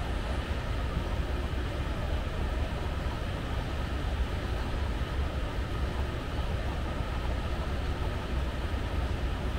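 Long airport moving walkway running underfoot while being ridden: a steady low rumble and whir from its drive and treads.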